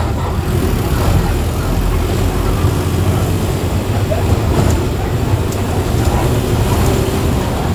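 Mercedes-Benz OF 1418 bus's four-cylinder diesel engine running steadily, a low drone with light rattles and clicks over it.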